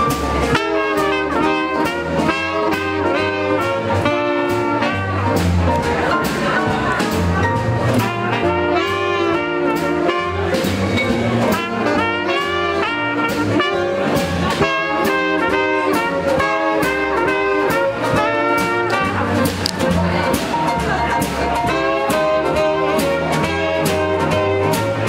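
Small swing jazz band playing live: two saxophones and a trumpet carry the melody over upright bass and a drum kit keeping a steady swing beat.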